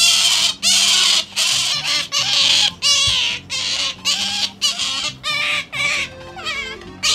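Asian small-clawed otter giving a rapid series of shrill, high-pitched squeaking calls, about two a second, as it begs for a head of lettuce held out to it. The calls grow a little softer near the end, over faint background music.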